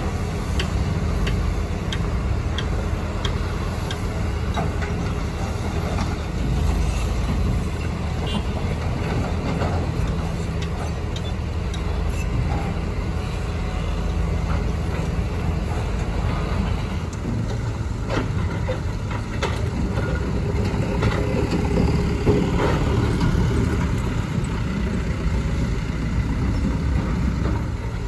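Diesel engines of crawler excavators and queued dump trucks running steadily, a low steady rumble, with scattered knocks and clatter of rock being dug and loaded. The machines work harder and the rumble grows louder in a busier stretch just past the middle.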